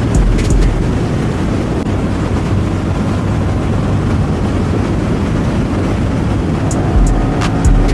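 Motorcycle running on the move, with heavy wind rush on the microphone as a steady low rumbling noise.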